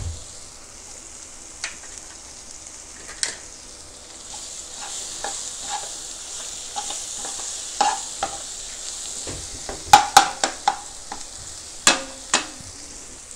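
Onion-tomato masala frying with a steady sizzle in a pan while a spatula stirs and scrapes through it. Several sharper knocks of the spatula against the pan come late on.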